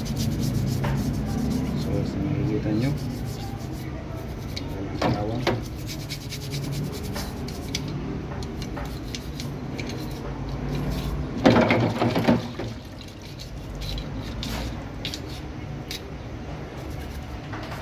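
Toothbrush scrubbing a wet, rusty steel 1911 pistol part with cleaning powder, in repeated scratchy back-and-forth rubbing strokes. A voice sounds briefly about five seconds in and again, louder, around twelve seconds in.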